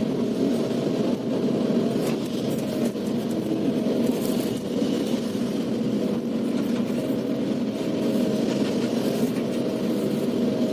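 Diesel engine of a Kobelco SK380XDLC excavator running steadily, with a few faint clicks over it.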